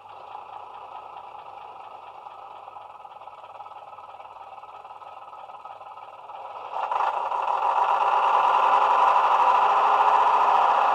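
Class 121 diesel railcar engine sound from a DCC sound decoder, played through the model's small speaker: the engine runs steadily, then about two-thirds of the way through it suddenly gets louder and stays louder.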